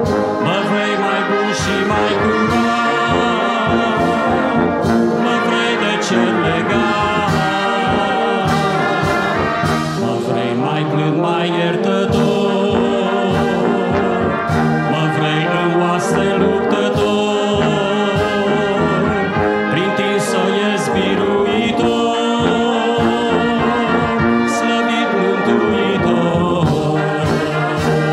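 Church brass band playing a hymn tune in full, sustained chords, with no singing.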